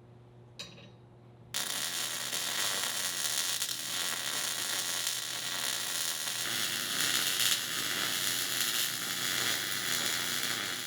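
Welding arc crackling steadily as a steel door hinge is welded solid to the jamb. It starts about a second and a half in, after a brief click, grows brighter about halfway through, and cuts off at the end.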